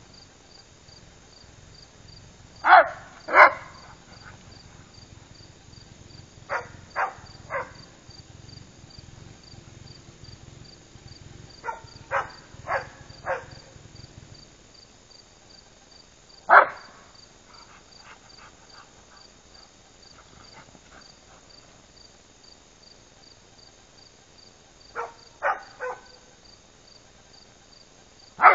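Dogs barking in short groups of one to four barks, the loudest a pair about three seconds in and a single bark about halfway through. Crickets chirp steadily in the background.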